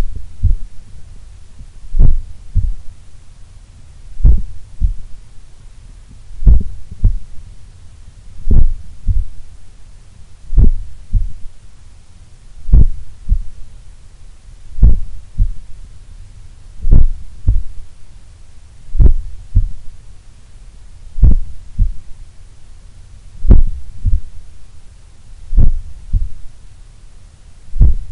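A slow, relaxed human heartbeat heard through a stethoscope pressed to the chest: a lub-dub pair about every two seconds, the second sound softer than the first. The very slow resting rate is that of a calm, fit heart.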